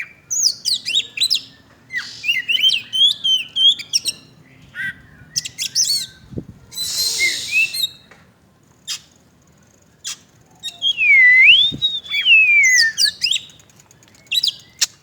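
Oriental magpie-robin (kacer) singing a varied song of quick whistles, chirps and clicks mixed with short harsh rasps, with a long swooping whistle about eleven seconds in.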